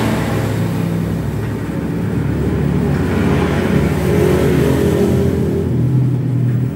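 Electric hair clippers running steadily while trimming hair, a continuous motor buzz that shifts a little in pitch as the blades work through the hair.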